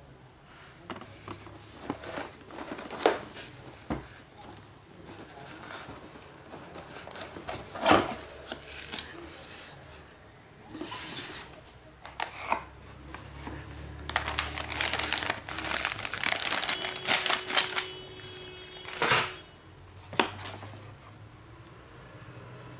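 Cardboard box and packaging being handled: flaps opened and contents shifted, with rustling, scattered sharp taps and knocks, and a long stretch of crinkling about two-thirds of the way through.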